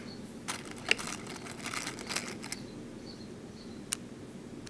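Small plastic BeadOs craft beads clicking and rattling against a plastic bead tray and layout template as fingers pick them out and set them in place. There is a run of light clicks over the first half or so and one sharp click near the end.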